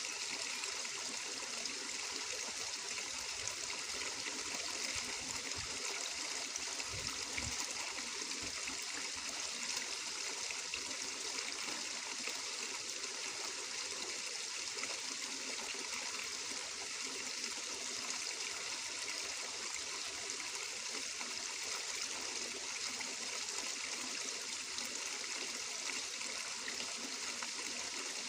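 Flowing water running steadily, an even, unbroken hiss of trickling and rushing water with no pauses or changes.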